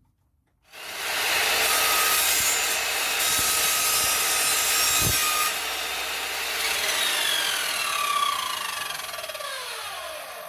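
Power miter saw switched on about a second in and cutting through a length of pipe, then the motor winding down with a falling whine over the last few seconds.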